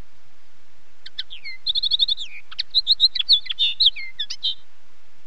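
Common linnet singing: one phrase of quick, high twittering notes with a short fast trill of repeated notes. It starts about a second in and lasts about three and a half seconds, over a faint steady hiss.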